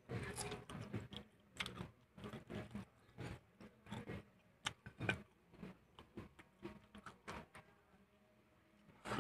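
A person biting into fried chicken and chewing it, an irregular run of sharp wet mouth clicks and smacks. The loudest come just after the start, about five seconds in, and at the end.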